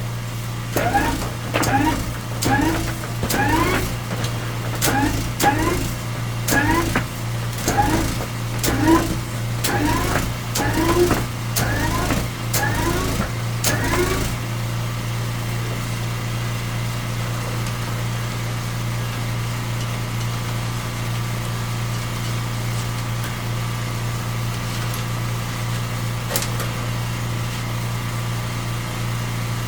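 Drain jetter's engine running steadily while cleaning a sewer pipe with a spinning disc nozzle. For the first half, a repeated rising squeak with a click comes about once every three quarters of a second, then stops about halfway through, leaving only the steady engine hum.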